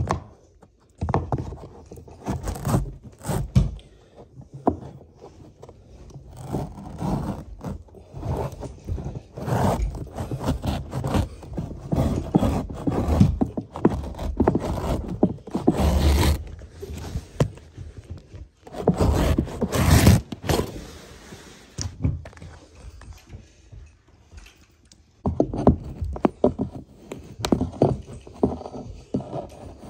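Carpet wall trimmer pushed along the foot of a wall, cutting the carpet's edge, in repeated scraping strokes with knocks, the loudest about 16 and 20 seconds in. Near the end a flat stair tool tucks the cut edge down against the wall.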